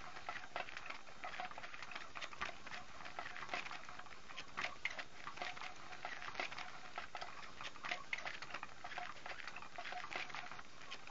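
Battery-powered Cat's Meow cat toy running: its hidden wand sweeps under the nylon cover, rustling and scratching the fabric in a steady run of irregular scratchy ticks.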